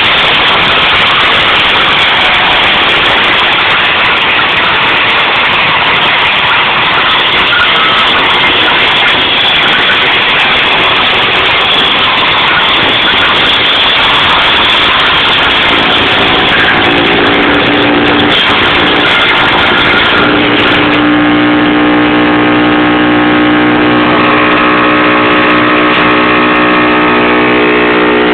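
Branch shredder running loudly, with a dense grinding roar as it works. About twenty seconds in the grinding noise drops away and a steady, evenly pitched engine drone is left.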